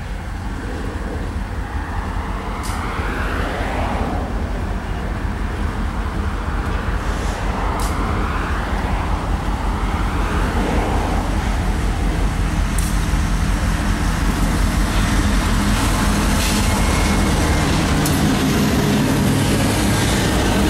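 Diesel freight locomotives approaching and passing close by: a steady engine rumble that grows louder as the lead units come alongside near the end, with wheel and rail noise.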